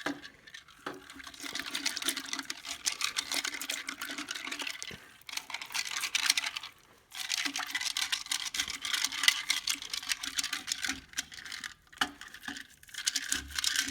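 Fish scaler scraping the scales off a herring held under water in a bucket: a fast run of scraping strokes with water sloshing, stopping briefly three times.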